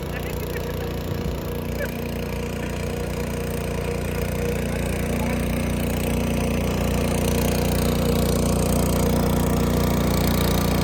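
A small engine running steadily at an even speed, growing slowly a little louder.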